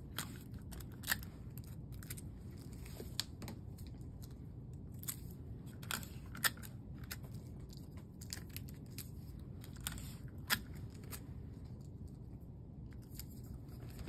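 Clear tape being pulled from a desktop dispenser and torn off, and the strips crackling as they are pressed down by hand: scattered sharp clicks and snaps, the loudest about six and a half and ten and a half seconds in.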